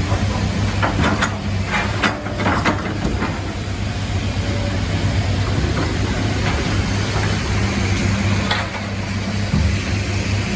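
Heavy vehicle engine running steadily at a low hum, with a few short clanks about one to three seconds in.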